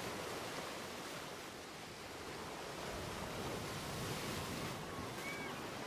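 Steady rushing outdoor ambience of the rainforest, with a few faint bird chirps near the end.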